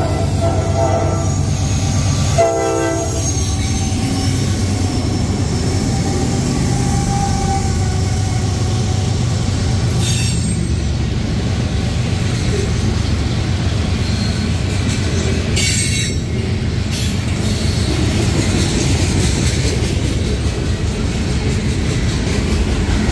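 Diesel freight train passing a grade crossing close by. The locomotive horn sounds at the start and again in a short blast about two and a half seconds in. Loaded covered hopper cars then roll past with a steady low rumble of wheels on rail, broken by two brief high squeals around ten and sixteen seconds in.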